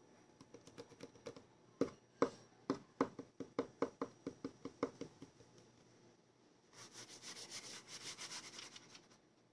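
Faint handling noise: light taps, several a second for about five seconds, then a couple of seconds of rubbing.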